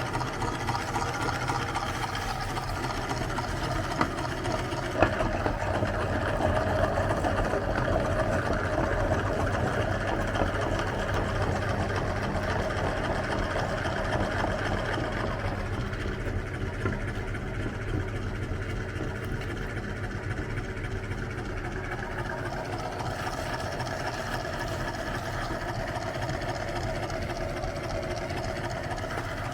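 Electric meat grinder running steadily as it grinds ice cream bars, with a couple of sharp clicks about four and five seconds in.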